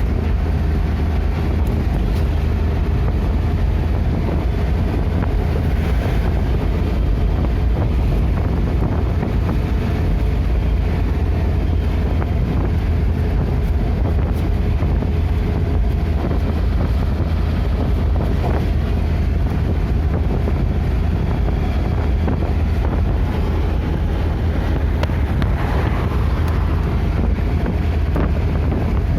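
Steady rumble of a moving vehicle on the road, with wind buffeting the microphone.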